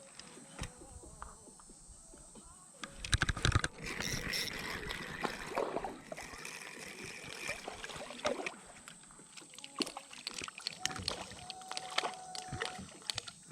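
Knocks, clicks and clatter of gear being handled in a small fishing boat, with water splashing against it; a loud burst of knocks about three seconds in.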